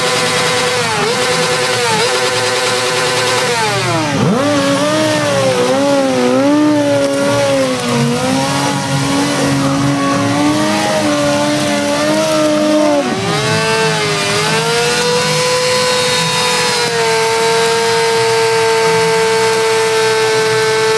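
Motorcycle engine revved hard and held at high, steady revs. The pitch drops sharply and climbs back twice, about four seconds in and again about thirteen seconds in, then holds steady.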